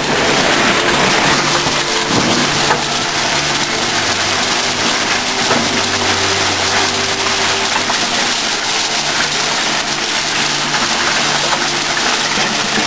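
Heavy hail pelting down: a dense, steady clatter of hailstones striking the ground and nearby hard surfaces.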